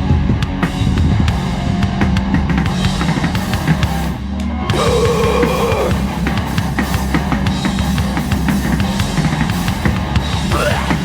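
Live hardcore punk band playing an instrumental stretch: fast, hard-hit drum kit with kick drum and cymbals under distorted guitar and bass. A brief drop about four seconds in, then a held, wavering note.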